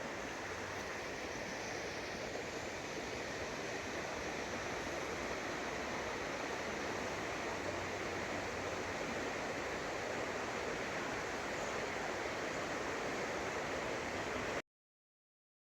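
Water of a waterfall rushing steadily, an even noise with no change; it cuts off suddenly near the end.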